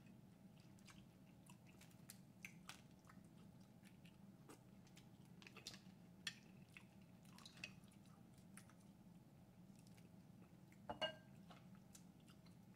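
Faint, scattered clicks and cracks of boiled snow crab shell being snapped and picked apart by hand, mixed with close chewing, with a louder crack near the end.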